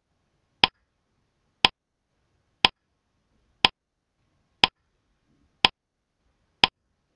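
Countdown timer sound effect: a sharp clock-like tick once a second, seven ticks in all, with near silence between them.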